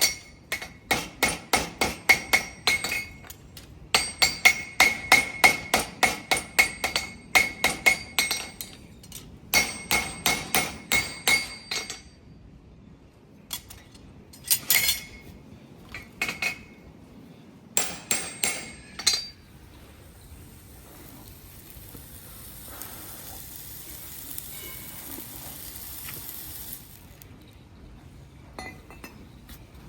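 Farrier's hammer striking a steel horseshoe on an anvil in quick runs of ringing blows, about three to four a second, shaping the shoe and drawing up its toe clips. After a few slower strikes, a steady hiss takes over near the end.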